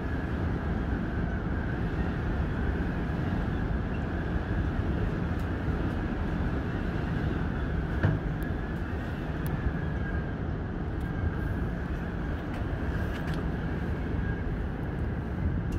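Jay Peak aerial tram cabin climbing its cables: a steady rumble and hum, with a faint high whine over it and a light knock about eight seconds in.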